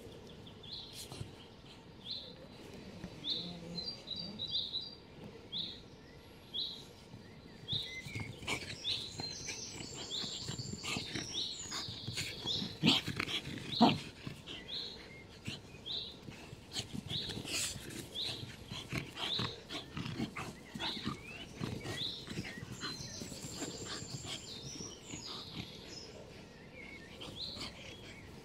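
Two Puli dogs, an adult and a puppy, play-fighting: short dog vocalizations and scuffling on sand and grass, loudest about 13 to 14 seconds in. A bird chirps over and over in the first few seconds.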